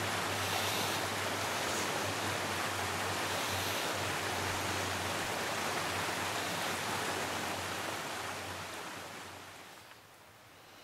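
Steady rushing noise, even from low to high, that fades away over the last few seconds.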